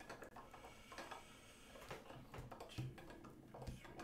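Near silence with faint, scattered light clicks of trading cards being handled and tapped on a cloth playmat.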